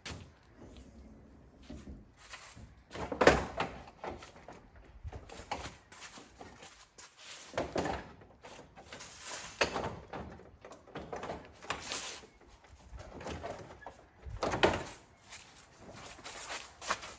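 Irregular clicks, knocks and rattles of hand work on a car's front end, fitting the fender well liner and air ducts back in place. Two louder thunks stand out, about three seconds in and near the end.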